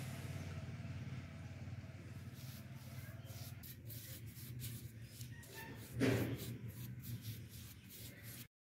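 Paintbrush strokes scratching across the rough surface of a clay planter, a quick irregular run of short brushing sounds over a steady low background hum. A louder sound falling in pitch comes about six seconds in, and the sound cuts off just before the end.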